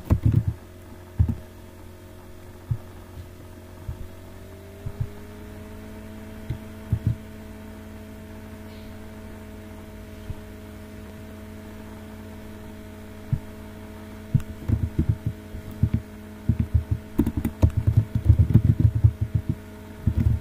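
Computer keyboard typing and mouse clicks, picked up as dull low knocks: a few single ones, then quick flurries in the last third. Under them runs a steady hum of several tones that steps up in pitch about four seconds in.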